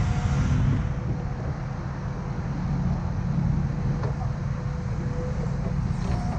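Heavy diesel earthmoving machine running steadily, a deep engine rumble with a faint steady whine above it.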